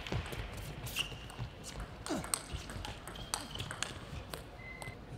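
Table tennis rally: the plastic ball clicking sharply off the rackets and the table in quick back-and-forth strokes, with a few short squeaks of shoes on the court floor.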